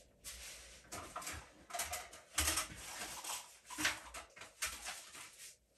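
A string of irregular rustles and soft knocks from someone handling and rummaging through craft supplies off camera.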